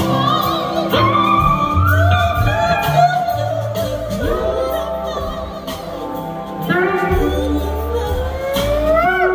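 Live soul-blues band playing on stage: electric guitars, bass and drums under a lead melody that wavers and slides between notes, with one long upward glide near the end.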